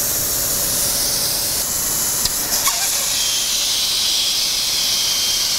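Steady hiss of air from a Miller Weldmaster 112 Extreme welding machine, with a couple of light clicks near the middle.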